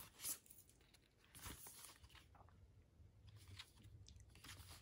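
Faint rustling and light scraping of the watch-band box's paper and cardboard packaging as it is unfolded and handled, in a few soft short bursts.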